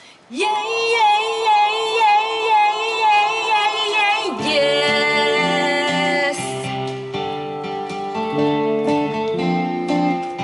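A woman sings live, rising into a long held note with a steady vibrato, then holds a second note over electric guitar chords. About six seconds in the voice stops and the electric guitar plays on.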